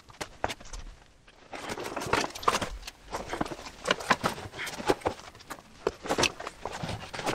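Hiking packs and gear being handled and hung up in a wooden cupboard: irregular knocks, clicks and rustling, with a quieter pause about a second in.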